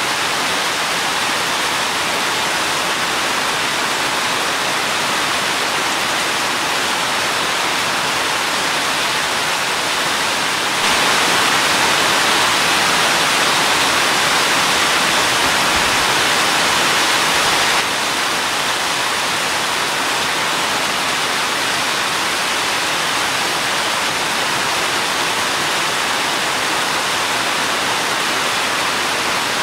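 Steady rain falling as an even hiss. About eleven seconds in it jumps abruptly louder and brighter, and about seven seconds later it drops back just as suddenly.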